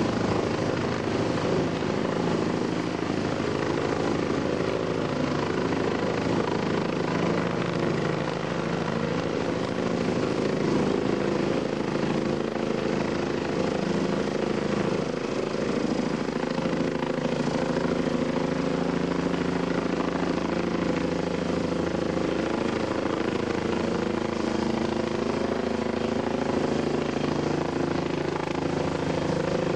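Tandem-rotor heavy-lift helicopter hovering overhead with a sling load on its cables: steady, unbroken rotor and engine noise at an even level.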